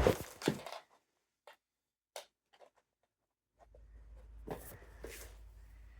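A brief rustle, a few faint clicks, then a low rumble with two short rustling scrapes.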